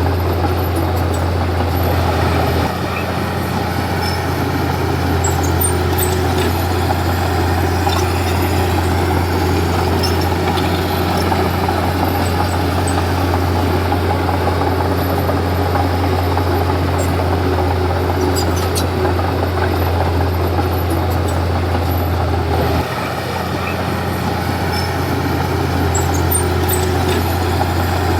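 Komatsu D31P bulldozer's diesel engine running steadily with a deep drone, which drops slightly in level about three seconds in and again shortly before the end, with faint scattered clinks over it.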